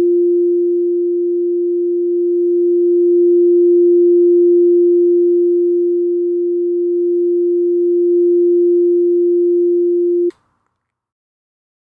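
Pure sine test tone from a digital audio workstation, held at one pitch while its level is moved between −6 dBFS and 0 dBFS, so it swells and dips by a few decibels. It cuts off abruptly near the end.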